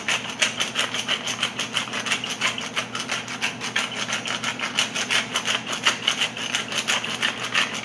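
Wooden pepper mill grinding black peppercorns, twisted back and forth in a rapid, even run of clicks.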